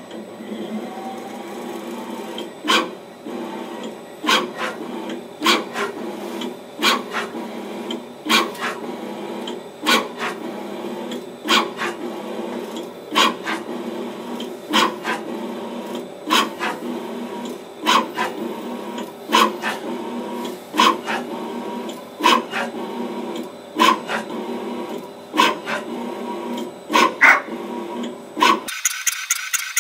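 DATRON M8Cube CNC mill running a 3D touch-probe cycle over a butternut pumpkin: a steady hum of the machine's axis drives, with a sharp click about every second and a half as the probe steps across the surface to map it for a Z-correction field. Near the end the machine sound cuts off suddenly and music with a fast ticking beat takes over.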